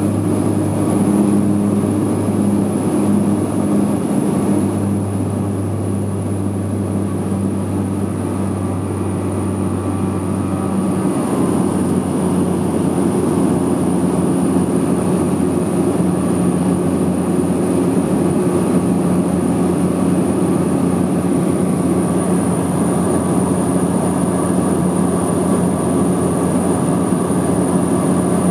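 Seaplane's piston engine and propeller running at takeoff power, heard from inside the cabin as a loud, steady drone. About eleven seconds in the engine note changes pitch, then holds steady through the climb.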